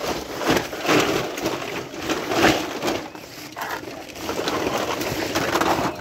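Rustling and knocking of plastic toys being handled and rummaged through in a heap, coming as a series of short noisy bursts.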